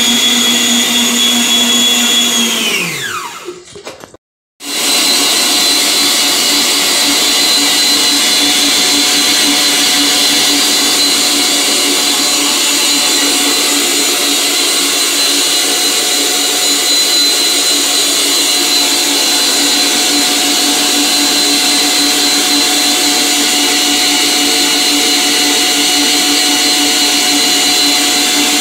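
Electric stand mixer motor whining steadily as it beats margarine and sugar. About two seconds in, the whine sinks in pitch and fades as the motor winds down. After a brief silence the mixer is running steadily again.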